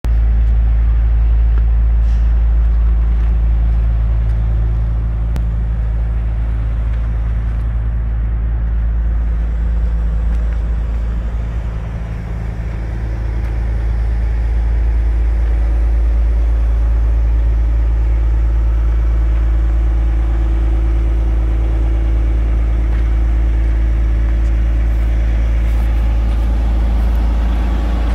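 Caterpillar 345D L excavator's C13 six-cylinder diesel engine idling, a steady low rumble that dips slightly about twelve seconds in.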